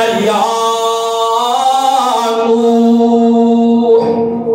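A man chanting unaccompanied in long held notes, about a second each, sliding between pitches.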